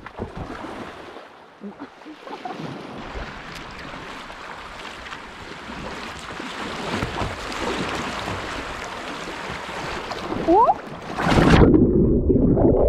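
Rushing water of a river rapid around a kayak, a steady hiss that slowly grows louder. About eleven seconds in it gives way abruptly to a loud, muffled, deeper churning, as the kayak capsizes.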